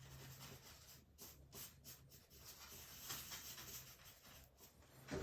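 Faint scratchy strokes of a paintbrush working acrylic paint on canvas, blending it in short irregular passes, over a low steady hum.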